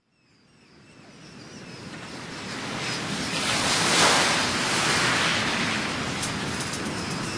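Sea waves washing and breaking as an even rushing noise. It fades in from silence and swells to its loudest about four seconds in, then eases a little.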